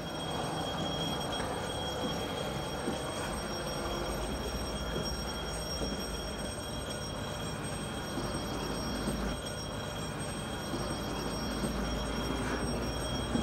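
Steady outdoor background rumble with a few faint, constant high-pitched whines.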